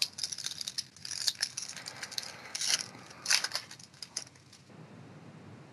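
Foil trading-card pack wrapper being torn open and crinkled by hand: a run of sharp crackles with a few louder rips, stopping about four and a half seconds in.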